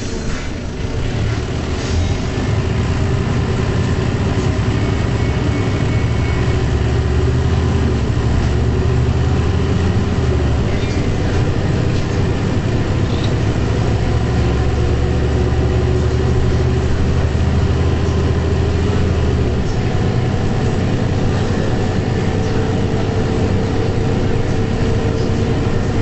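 Mercedes-Benz O405 bus's six-cylinder diesel engine running under way, heard from inside the passenger cabin as a steady low rumble. It builds about two seconds in, and the low engine note shifts twice, about ten and twenty seconds in.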